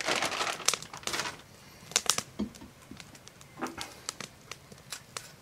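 Plastic bag of shredded mozzarella crinkling as the cheese is shaken out, for about the first second and a half. Then a few light, separate clicks and taps of handling.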